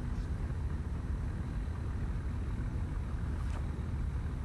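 Steady low rumble of distant motor traffic and engines, with a faint steady hum and a couple of faint brief ticks.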